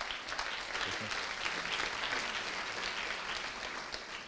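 Audience applauding, many hands clapping; it builds quickly, holds, then thins out near the end.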